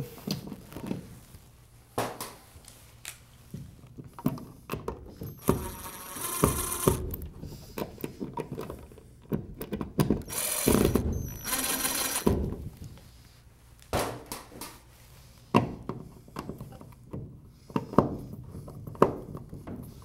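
Cordless drill driving an electrical outlet's mounting screws into a plastic wall box in a few short runs, each a second or two long, around six seconds in and again around ten to twelve seconds in. Between the runs come scattered clicks and knocks of hands handling the outlet and screws.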